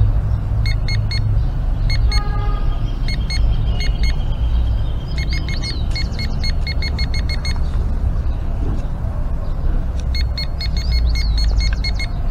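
Handheld metal-detecting pinpointer beeping in quick runs of short, even high pulses that start and stop several times as its tip is worked through the soil, signalling a small metal target in the hole. A steady low rumble runs underneath.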